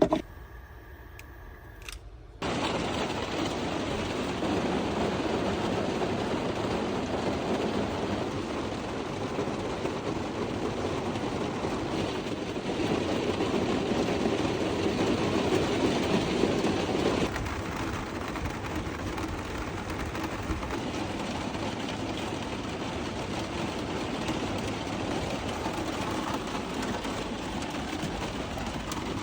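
Steady rain falling, a dense even patter that starts abruptly about two seconds in.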